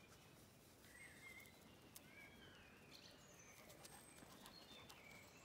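Faint birdsong: scattered short chirps and whistles over quiet outdoor background noise, with a few soft clicks.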